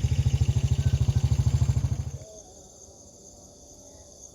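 Motorcycle engine idling with a rapid, even pulse, switched off about two seconds in. Crickets chirp faintly underneath and carry on once the engine stops.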